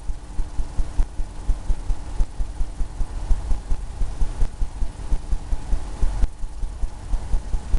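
Paintbrush dabbing and tapping against a stretched canvas: quick, irregular low thumps, about four to five a second.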